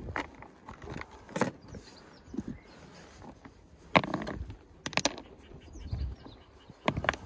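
Rocks clacking and scraping against one another as they are shifted by hand, a few separate knocks with the loudest about four seconds in.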